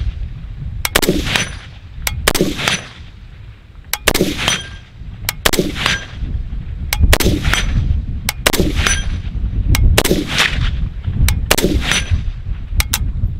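WBP Fox AK-pattern rifle firing Wolf 7.62x39 steel-case ammunition in slow, aimed semi-automatic shots. There are about eight loud reports, roughly one every one and a half to two seconds, each with a short echo. Shorter, sharper cracks fall between some of the shots.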